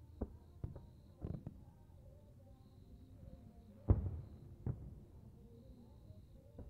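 Aerial fireworks going off in a series of sharp, distant booms, each trailing off in a short echo. The loudest comes about four seconds in.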